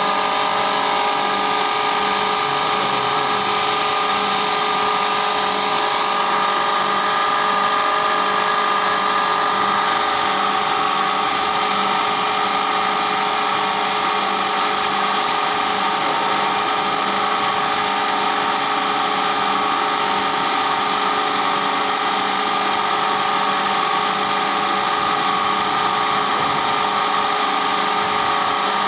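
Vertical milling machine running steadily, its motor and spindle giving a constant whine of several held tones over a mechanical hum.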